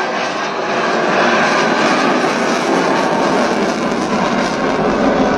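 Military jet aircraft flying overhead, its engine noise a steady, even rush.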